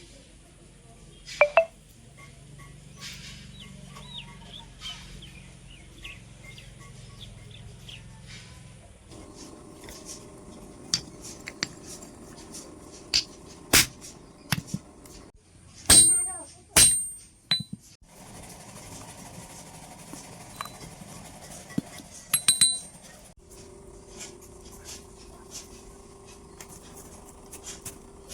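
Metal parts and hand tools clinking and knocking on a workbench, with a few sharp metallic strikes near the middle that ring briefly, over a steady low hum.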